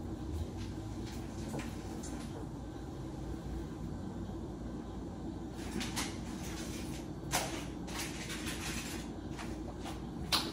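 Steady low room hum with several faint knocks and clatters of kitchen handling off to one side, most of them in the second half and the sharpest about seven seconds in.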